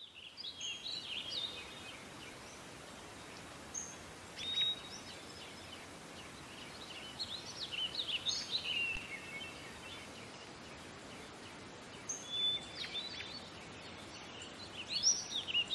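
Small birds chirping and twittering, short high sliding calls in scattered clusters, over a faint steady hiss.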